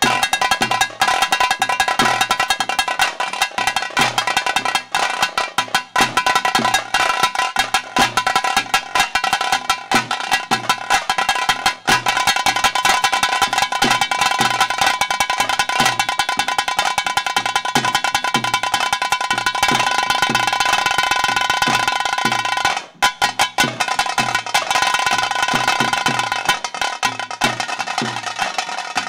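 Rapid, dense drumming on stick-beaten drums: the tase beat that accompanies a tiger dance, with a steady droning note held over it. Late on the drumming stops for a moment, then picks up again.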